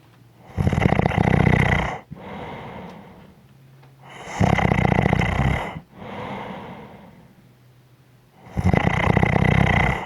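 A person snoring: three loud, rattling snores about four seconds apart, each followed by a softer breath out.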